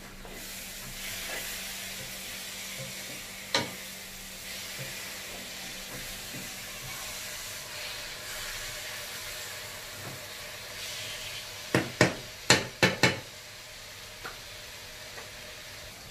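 Spicy fried mackerel skin and spice paste sizzling in a wok. There are sharp knocks over the steady sizzle: one about three and a half seconds in, then five in quick succession about twelve seconds in.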